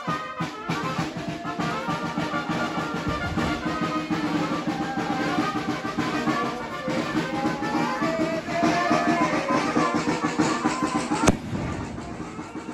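Brass band music, brass and drums playing a tune, with a single sharp crack about eleven seconds in, after which the music is quieter.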